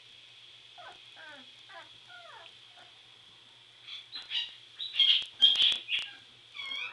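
Three-week-old border collie puppies whimpering: a few soft falling whines, then about four seconds in a burst of loud, short yips and squeals.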